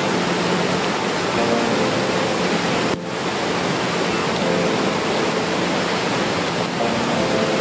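Swollen floodwater rushing and churning as whitewater after heavy rain: a steady, dense rushing noise with a brief dip about three seconds in.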